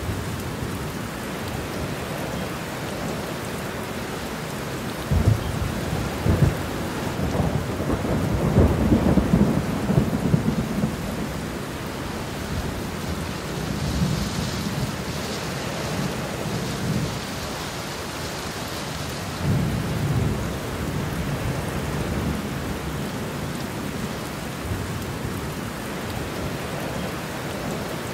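Steady rain with several rolls of thunder. A sudden rumble comes about five seconds in, the loudest and longest rumble around nine to ten seconds in, and fainter ones later.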